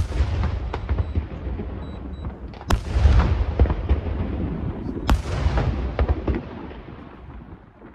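Aerial fireworks shells bursting: three bangs about two and a half seconds apart, each followed by a long rumble and a trail of crackling that fades away.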